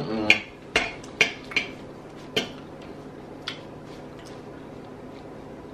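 Spoon and fork clicking against a plastic sauce cup and a plate: several short, sharp taps in the first two and a half seconds and one more after that, over a faint steady hum.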